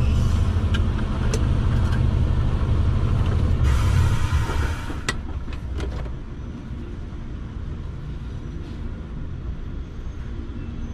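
Semi-truck's diesel engine running with a heavy low rumble while driving, then about four seconds in a short hiss and a few sharp clicks, after which the engine runs more quietly.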